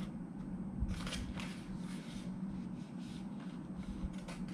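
Pages of an album photobook being handled and turned: a few short, soft paper rustles, with a low steady hum underneath.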